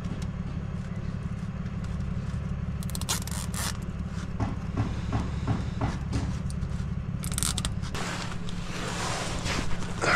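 Plastic zip ties being ratcheted tight around a van's gear-shift linkage, a quick zipping rasp about 3 s in and again about 7 s in, with small clicks between. A steady low engine hum runs underneath, and near the end there is rustling and scraping as the worker shifts on the cardboard.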